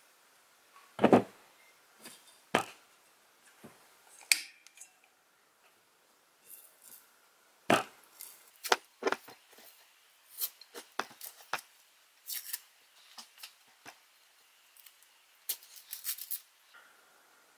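Masking tape being peeled off a freshly spray-painted hatchet head: short rasping strips of tape coming away, mixed with scattered small clicks and taps as the head is handled against the workbench, two sharper knocks standing out about a second in and near the middle.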